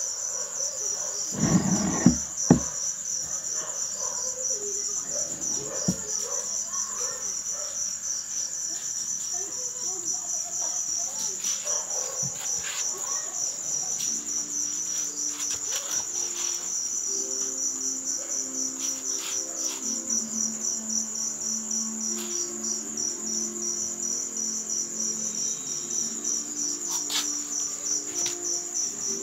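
Insects chirping in a steady, fast, high-pitched pulsing trill throughout. A couple of sharp knocks come about two seconds in, and faint low sustained tones that change pitch in steps join about halfway.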